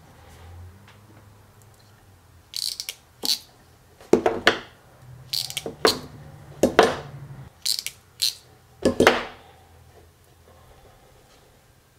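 Ratcheting crimp tool clicking as it is squeezed shut and released on small connector pins: several clusters of sharp clicks and snaps.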